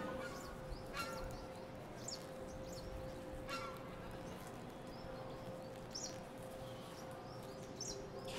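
A quiet steady held tone with faint short bird chirps scattered over it, and two brief soft rustles about one and three and a half seconds in.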